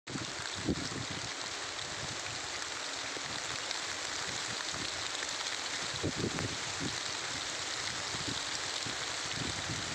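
Light drizzle falling: a steady, even hiss, with a few soft low thumps.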